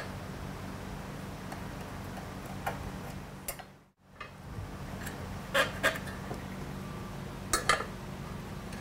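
Scattered light metallic clicks and ticks of a hand layout tool touching a steel bar, some in close pairs, over a steady low shop hum. The sound cuts out briefly about four seconds in.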